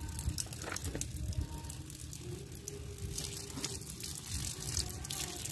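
Thin stream of water splashing onto a rock where a plastic toy figure is being rinsed, with scattered drips and splats throughout.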